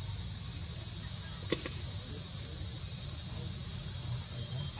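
Steady high-pitched drone of an insect chorus, unchanging throughout, over a faint low rumble. A brief soft tick about a second and a half in.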